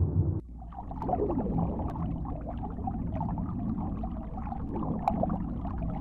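A low rumble cuts off abruptly about half a second in and gives way to underwater ambience: muffled water gurgling and bubbling with many small clicks.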